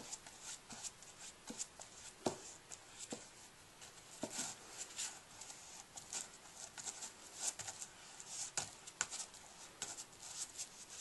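A brush spreading wet Mod Podge over paper cutouts on a canvas: faint repeated scratchy strokes, with a few light taps, the sharpest about two seconds in.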